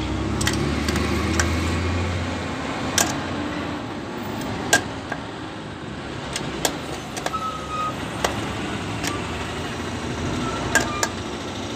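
Scattered metallic clicks and clinks of a socket wrench working the bolts on a rotavator's gearbox side cover, about a dozen at irregular spacing, over steady mechanical background noise with a low hum in the first couple of seconds.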